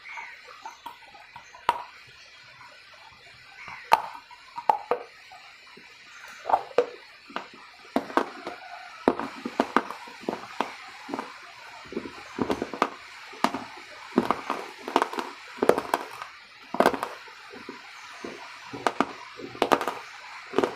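Close-up chewing of a mouthful of food: wet mouth clicks and lip smacks at an irregular pace, sparse at first and coming thick and fast from about six seconds in.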